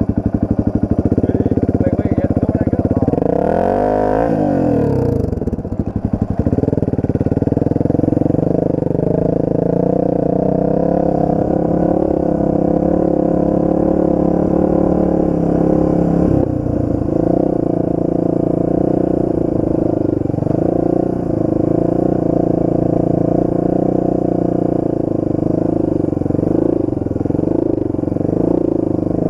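Enduro motorcycle engine running, revved up and back down once about four seconds in, then held fairly steady with small dips in pitch.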